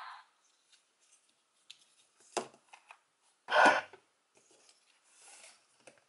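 Small plastic toy pieces handled and set down on a tabletop: scattered light clicks and taps, with one louder clack-and-scrape about three and a half seconds in. At the very start the tail of the toy morpher's electronic sound effect fades out.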